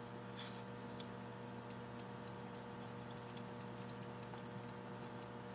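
Faint, irregular light clicks of small metal parts being handled and fitted on a model engine, over a steady low hum.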